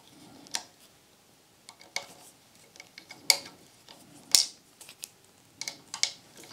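Small sharp metallic clicks and taps of a wrench on the screws of a Celestron focus motor as its mounting screws are tightened down, about seven scattered clicks at irregular intervals.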